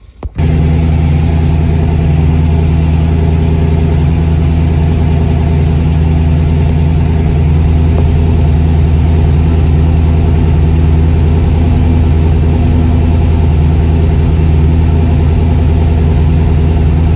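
LS V8 fitted with Holley Sniper 2x4 dual-quad fuel injection, running on E85 and idling steadily while it warms up after its first start-up. The engine sound cuts in suddenly about half a second in and then holds loud and even.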